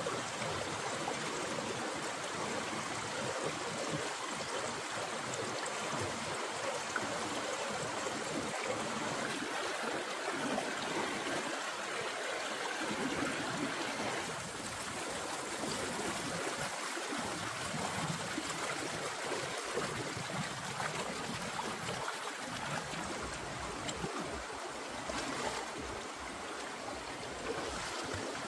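Shallow rocky stream running over rocks and small cascades, a steady wash of flowing water.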